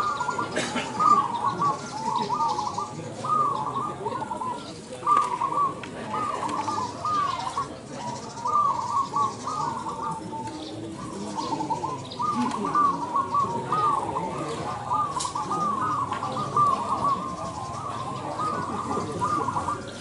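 Many caged zebra doves (perkutut) cooing at once, their short curved coo notes overlapping one after another without pause.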